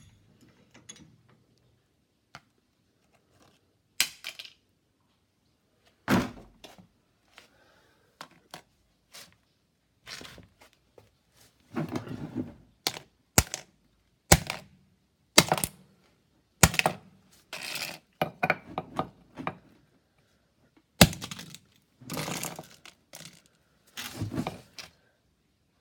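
Mobile phone being crushed in a press: irregular sharp cracks and crunches of the screen and casing breaking. Some are single snaps and some are longer crunching stretches, with quiet gaps between them.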